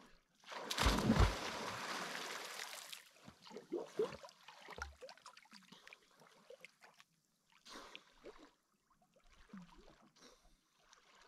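A person diving head-first off a rock into a lake: one loud splash about a second in, lasting about two seconds, with a deep thump as the body hits the water. Smaller, scattered water sounds follow as the wake washes against the shore rocks.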